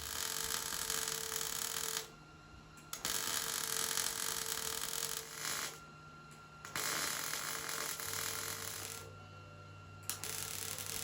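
Wire-feed (MIG) welder laying short beads on steel: four bursts of steady crackling hiss, each two to three seconds long, with brief pauses between them.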